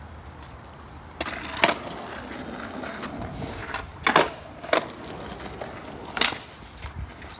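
Skateboard wheels rolling on concrete, with several sharp clacks of the board striking the ground, the loudest about four seconds in, as a skater tries a trick.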